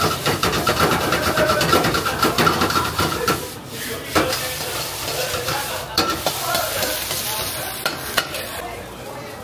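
Metal ladle scraping and clanking against a wok while fried rice sizzles, being stir-fried and tossed. Rapid scraping strokes for the first three seconds or so, then a few separate clanks.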